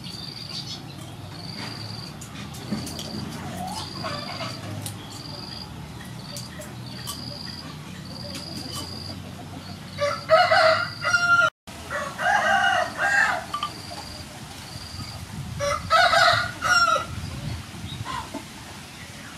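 Rooster crowing three times in the second half, each crow a loud pitched call of about a second and a half, over a background of short, evenly repeated high chirps.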